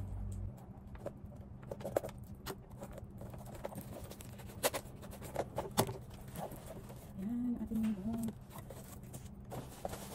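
A cardboard box being opened by hand: its packing tape is slit and peeled and the flaps pulled open, giving scattered scratches, clicks and rustles over a steady low hum.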